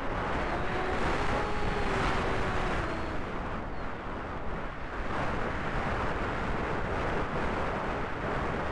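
Wind rushing over the onboard camera microphone of a Reptile S800 V2 FPV flying wing on its landing approach. A faint electric motor and propeller whine wavers in pitch during the first three seconds, then fades, leaving only the rush of air as the wing glides in low on reduced throttle.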